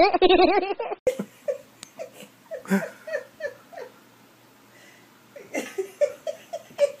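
A person giggling softly: short rising-and-falling notes a few times a second, with a pause of about a second and a half in the middle.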